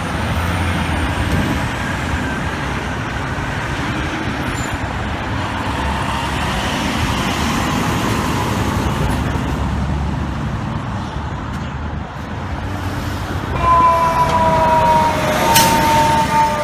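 Steady traffic and truck engine rumble. About 13.5 seconds in, a fire truck's air horn sounds a long held chord that sinks slightly in pitch as the truck goes by.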